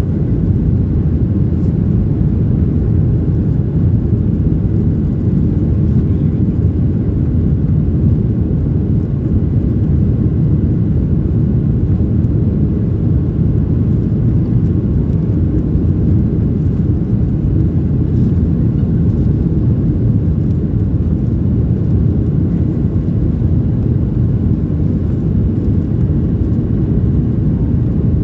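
Steady low rumble inside the cabin of a Boeing 737-800 in the climb, the noise of its CFM56-7B engines and the airflow heard from a passenger seat.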